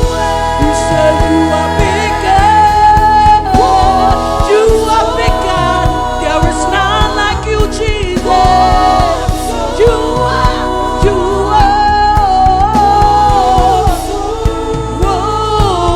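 Live gospel worship music: voices singing a bending melody over instrumental accompaniment with a steady beat.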